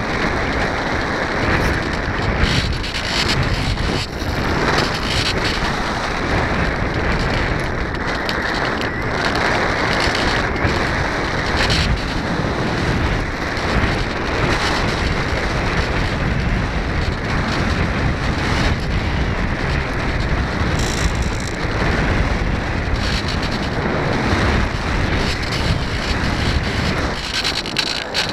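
Wind rushing and buffeting over the microphone of a camera mounted on a flying foam radio-controlled plane: a loud, steady, fluctuating roar of airflow noise.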